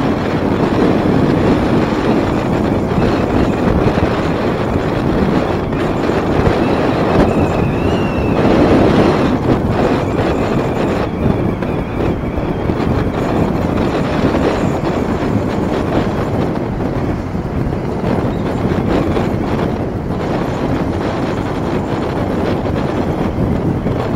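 Steady rush of wind and road noise from a small motorcycle riding at speed, with the bike's engine running underneath.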